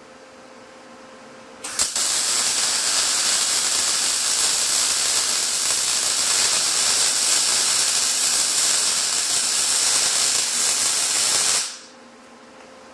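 Electric arc welder striking an arc on steel tubing about two seconds in, with a couple of sharp clicks. It then runs a steady hiss for about ten seconds while laying a short fillet weld, and cuts off near the end.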